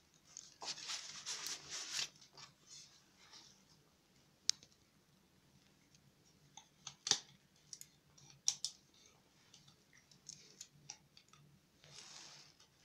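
Handling noise from a hand on the camera and flashlight: a rustle during the first two seconds, then a few sharp, scattered clicks.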